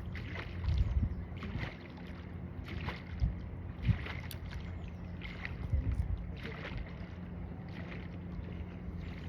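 Small boat on the water: a steady low engine hum, with water swishing and splashing about once a second.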